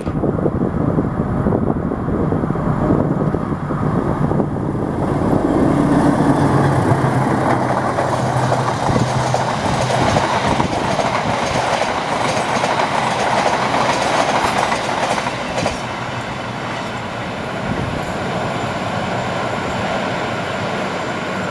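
Passenger train passing close by at speed, hauled by a diesel-electric locomotive. The locomotive's engine drone is heard in the first several seconds, then comes the steady noise of the coaches' wheels on the rails. The sound eases off over the last few seconds as the train draws away.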